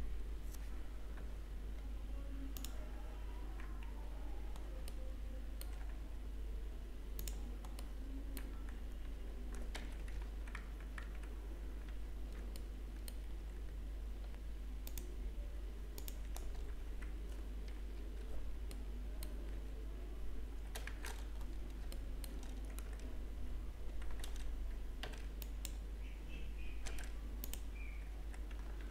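Computer keyboard keystrokes and mouse clicks, scattered and irregular, over a steady low hum.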